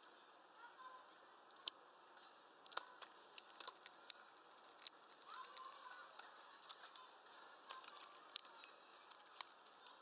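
Hawfinch cracking sunflower seeds at a feeder tray: sharp, irregular clicks and crackles, coming in clusters from about three seconds in.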